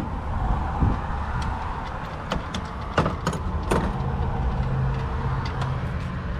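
Scattered sharp metallic clicks and knocks from hand tools and engine parts being handled while an idler pulley bolt is removed from a van's accessory drive, over a steady low rumble.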